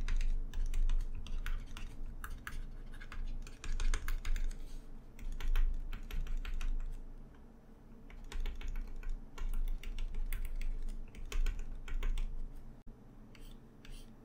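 Stylus tapping quickly on a drawing tablet in clusters of light clicks, stippling dots of paint. The taps come in bursts with a short pause about six seconds in, and thin out near the end.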